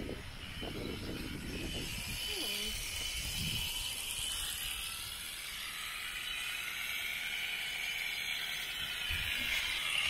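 Electric shearing handpiece running as it clips through an alpaca's fleece, a steady high-pitched whir, with a low rumble in the first couple of seconds.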